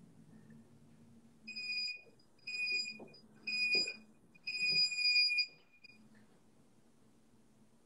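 Digital interval timer beeping a countdown: three short high beeps about a second apart, then a longer final beep, marking the end of a timed interval. A couple of soft knocks come under the beeps.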